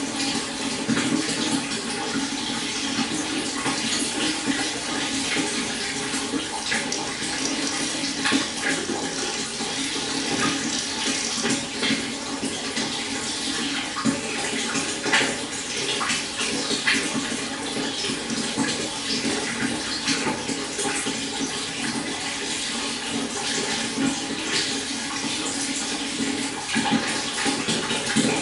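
A babbling stream: water running steadily, with many small splashes and gurgles over the rush.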